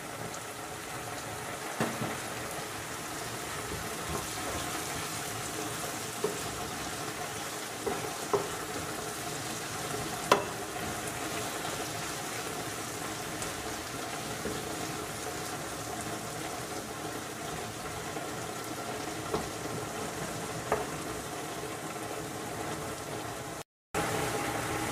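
Chopped tomatoes and vegetables sizzling steadily in a frying pan, with a few sharp taps and scrapes of a wooden spatula as they are stirred. The sound cuts out briefly near the end.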